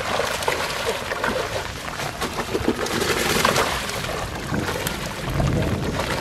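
Water splashing and sloshing as fish thrash in a drag net being closed in a shallow pond, with the wading of the men hauling it. There are many short irregular splashes, loudest about halfway through.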